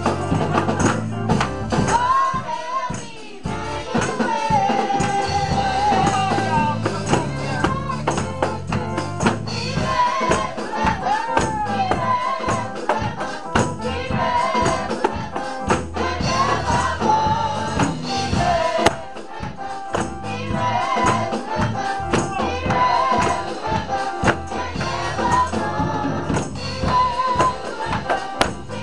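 Gospel song sung by young girls' voices through microphones, with a tambourine jingling in rhythm over a backing accompaniment.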